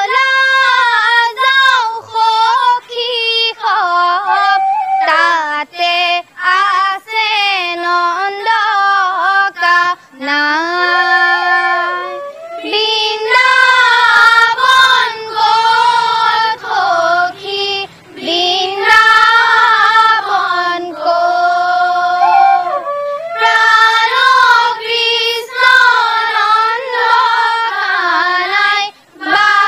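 A group of teenage girls singing an Assamese dihanam devotional song together in unison, in flowing, ornamented phrases.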